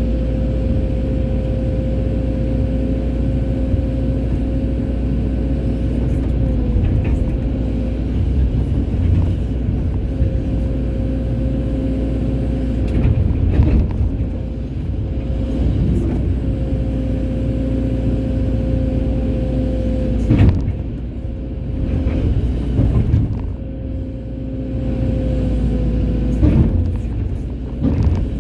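Hydraulic excavator's diesel engine running steadily with a constant whine, interrupted several times by short knocks as the machine works.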